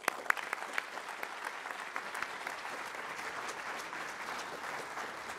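Audience applauding, beginning with a few sharp claps that quickly fill in to steady clapping.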